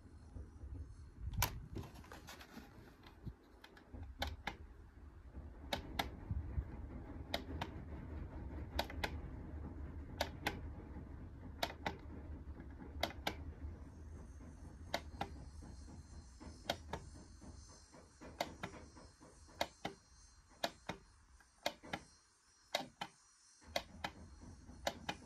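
Sharp clicks of the push buttons on an iron filter's control valve keypad, about one press a second and quicker near the end, as the settings are stepped through. A low rumble sits underneath.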